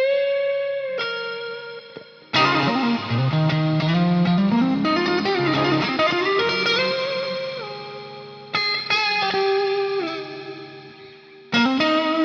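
Electric guitar: a Stratocaster with Fender Texas Special pickups played through an effects patch, the pickups a little too hot for the patch. It plays held lead notes and a strong new attack about two seconds in, then a long rising string bend, with fresh picked notes twice near the end.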